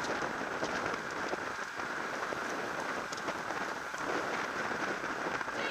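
Steady rushing hiss of wind over the microphone with road-bike tyres rolling on tarmac, riding at speed in a bunch of racing cyclists.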